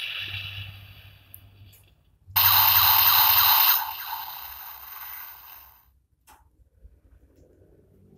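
Electronic sound effects from a DX Zero-One Driver toy belt's speaker, played with a custom Kuehne Magia key inserted. A first effect fades out, then a loud, harsh burst starts about two seconds in, lasts over a second and dies away, with a small click near the end.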